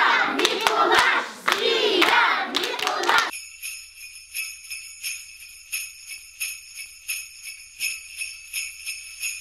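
A group of children shouting and singing with hand claps. About three seconds in this cuts to jingle bells shaken in a steady rhythm, about three shakes a second.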